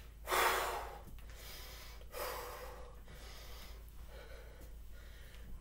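A woman breathing hard from exertion mid-workout: three heavy breaths about two seconds apart, the first the loudest.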